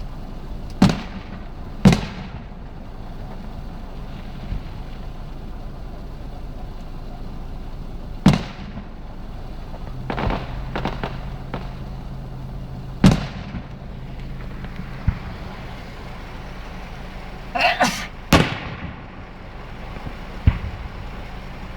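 Fireworks going off, heard from a car: about five loud bangs a few seconds apart, each fading out, with fainter pops and two short spells of crackling between them, over a steady low hum.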